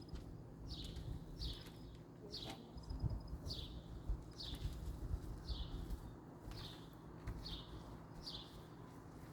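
A small bird calling over and over: short, high chirps that each fall in pitch, about one and a half a second, over a low background rumble.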